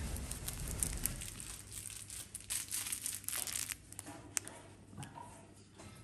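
Crinkly crackling and rustling of a plush crinkle toy being handled and squeezed, denser in the first few seconds and quieter towards the end.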